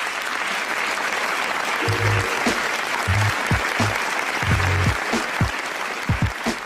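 Applause greeting an introduced guest, with background music and low bass notes joining in about two seconds in.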